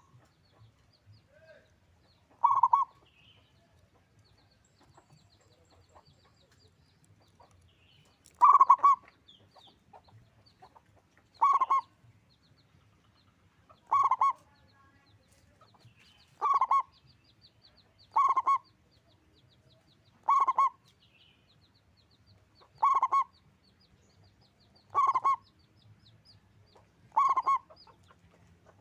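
Zebra dove (perkutut) cooing: about ten short phrases of its bubbling coo, repeated every two to three seconds after a longer pause early on.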